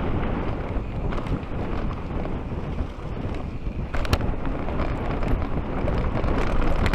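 Wind buffeting the action camera's microphone and knobby tyres rolling over a dirt trail as a Kellys Swag mountain bike descends, with the bike rattling over bumps and a sharp knock about four seconds in.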